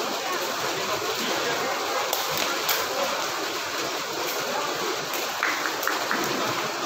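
Steady rushing ambient noise of a sports hall, with indistinct voices of spectators and players and a few faint sharp ticks.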